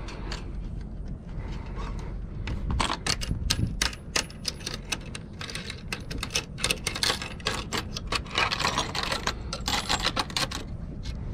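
Small metal sailboat rigging hardware, blocks and shackles at the mast base, clicking and clinking as it is handled, in quick irregular runs of sharp clicks that start about three seconds in.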